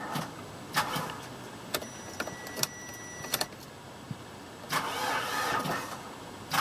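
Starter motor of a 2012 Mitsubishi Fuso FE diesel box truck cranking in several short bursts on jump-box power, the engine not catching. A thin steady electronic tone sounds for about a second and a half in the middle.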